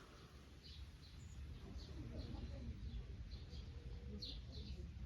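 Birds chirping and tweeting faintly, short high calls scattered throughout, a little busier near the end, over a low steady background rumble.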